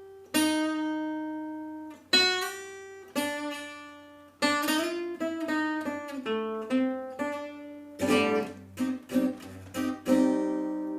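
Guitar played solo. A few chords are each left to ring, then comes a quicker run of picked notes, and near the end quick strummed chords.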